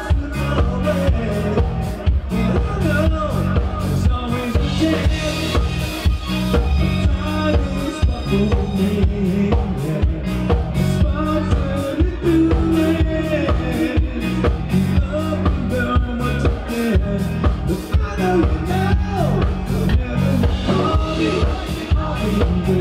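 Live rock band playing: electric guitar, bass guitar and drum kit, driven by a steady drum beat.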